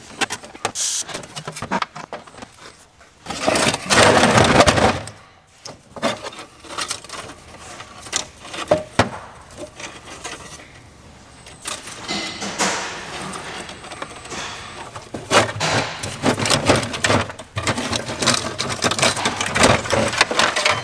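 Hands pulling at an old car wiring loom and its plastic connectors and module: irregular rustling, scraping and small clicks, with a louder rasping scrape lasting about a second and a half about four seconds in.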